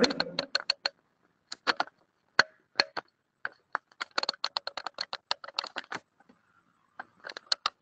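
Runs of quick, sharp clicks and taps in clusters with short pauses between, typical of handling small hard objects or typing.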